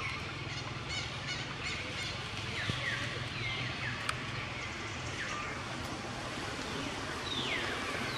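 Outdoor ambience with a run of short high calls, each dropping quickly in pitch, about a third of the way in, and one longer falling call near the end. A few sharp clicks sound over it.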